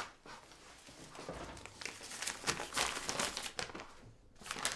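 A folded sheet of paper being unfolded and opened out, with irregular crinkling and rustling that begins with a sharp crackle.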